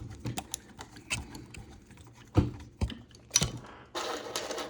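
Small clicks and taps of M4 screws and parts being handled and fitted during assembly of a gearmotor and coupling, with a few sharper knocks a little past halfway, then a short soft hiss near the end.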